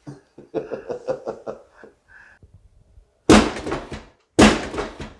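Three loud thumps about a second apart, each fading quickly, after a couple of seconds of low talk.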